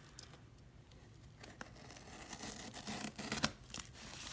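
Packing tape on a cardboard parcel being cut and torn open with a utility knife: scattered scrapes and clicks, quiet for the first second or so and busiest around three seconds in.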